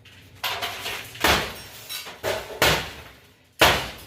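Hammer blows on a broken oven, five strikes roughly a second apart, the last one the loudest.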